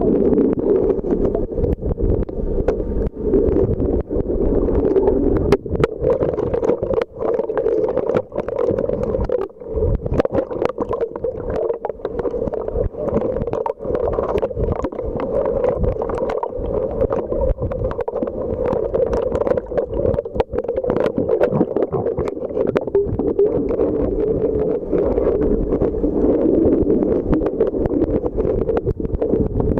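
Underwater sound: a steady, muffled rush of water with many irregular sharp clicks and crackles throughout.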